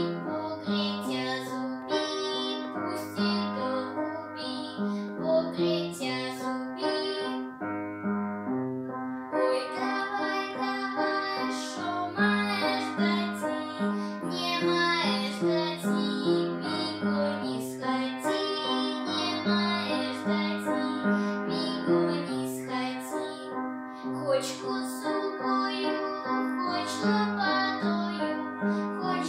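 A young girl singing a folk song solo over an instrumental accompaniment with a steady beat.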